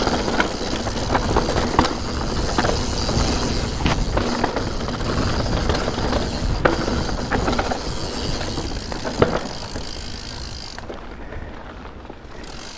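Santa Cruz Nomad 4 full-suspension mountain bike ridden fast down rough dirt singletrack: tyres rumbling over dirt and stones, with the bike rattling and knocking over bumps and wind noise on the mounted camera. It quietens about eleven seconds in as the bike slows on a smoother stretch.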